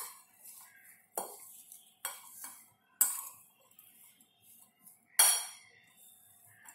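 A spoon scraping and clinking against a ceramic bowl as chopped vegetables are stirred, in several irregular strokes, the loudest about five seconds in.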